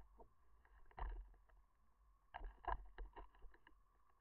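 Irregular underwater clicks and knocks picked up by a submerged camera, in a short cluster about a second in and a longer run from about two and a half seconds, over a faint steady hum and low rumble.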